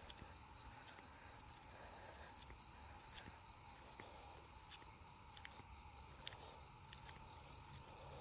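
Faint night chorus of insects in woodland: a steady high trill with a lower steady drone beneath it, and a few faint scattered ticks.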